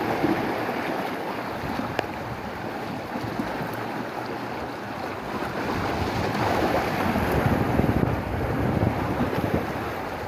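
Sea surf washing on the shore with wind buffeting the microphone, a steady rushing that swells louder about six seconds in.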